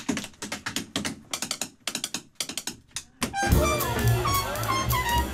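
A quick, uneven run of sharp dry clicks and taps for about three seconds. Then a jazz band comes in, with a horn playing over bass.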